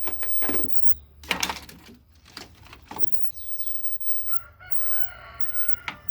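A few short knocks and handling sounds, then a drawn-out animal call of several steady tones, lasting about two seconds and starting a little after four seconds in, over a low steady hum.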